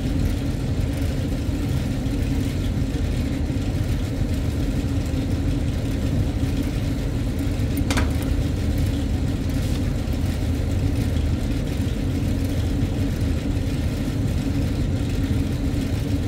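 Steady low mechanical drone of running rooftop HVAC equipment, with a single light metallic click about eight seconds in as the fan's adjustable motor pulley is handled.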